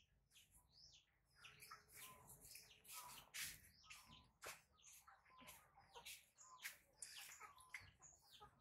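Faint, busy chirping of small birds: many short high calls a second, each sliding down in pitch.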